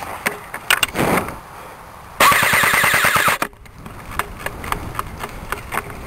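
ICS M4 airsoft electric rifle firing one full-auto burst of a little over a second, starting about two seconds in, a rapid even rattle of shots. A few sharp clicks and a short rustle come before and after it.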